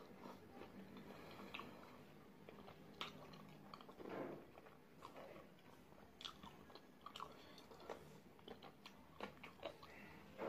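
Faint, close-up eating sounds: irregular wet chewing, smacks and bites as a person tears apart and eats sauce-coated spicy fried chicken wings by hand.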